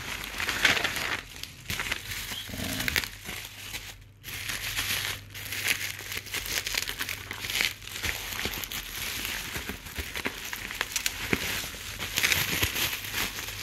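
Plastic bubble wrap crinkling and crackling as it is handled and pulled open by hand, with a brief pause about four seconds in.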